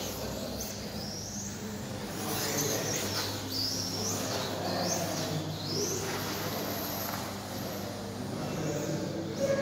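High-pitched electric motor whine of a 1/12-scale RC car, rising and falling in pitch again and again as the car accelerates and slows around the track.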